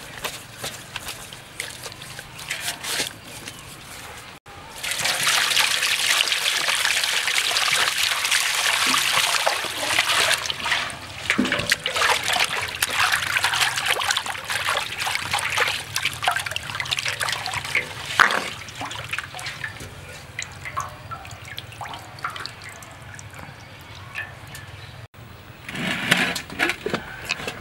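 Hands scrubbing a stingray in a basin of water: water sloshing and splashing. The first few seconds hold quieter rubbing of wet skin, the splashing comes in loud about four seconds in, and there is a short burst of splashing near the end.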